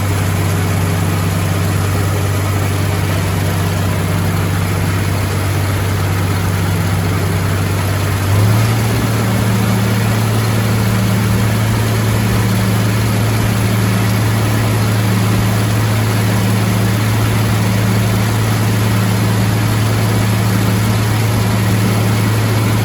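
Farm tractor engine running steadily while pulling an ear corn picker through the field, over a broad mechanical noise. About eight seconds in the engine speeds up slightly and holds at the higher speed.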